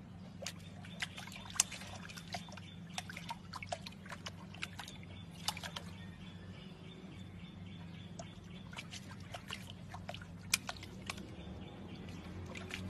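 A puppy at a stone water basin, lapping and dabbling at the water: irregular small wet clicks and drips over a low steady hum.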